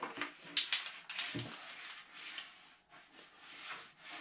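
Handling noise as a wooden kitchen cabinet door is moved and lined up against a fridge front: a sharp click about half a second in, a low knock shortly after, and light rustling and scraping.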